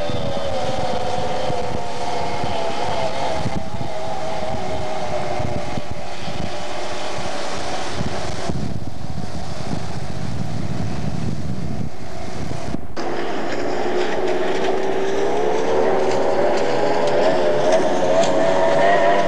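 Tunnel-hull speedboat's engine running at speed, a whining note that wavers up and down. After a brief break about two-thirds of the way through, the note climbs steadily.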